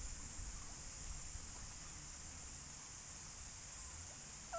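Quiet outdoor ambience: a steady high-pitched hiss over a low rumble, with one brief squeak at the very end.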